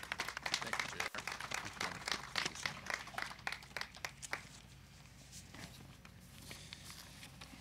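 Small audience clapping, with rapid overlapping claps that thin out and die away about four seconds in.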